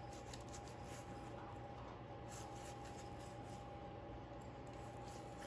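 Silicone pastry brush dabbing sugar glaze onto the hard crust of a hot sourdough loaf: faint scratchy brushing strokes, over a steady faint hum.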